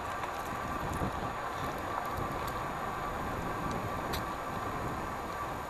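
Steady wind rush on the microphone and tyre-on-road noise from a cross bike being ridden along a paved road, with a few faint ticks.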